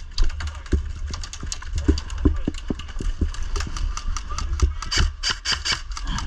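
Airsoft guns firing: rapid sharp shots, getting faster and louder about five seconds in, over a steady low rumble.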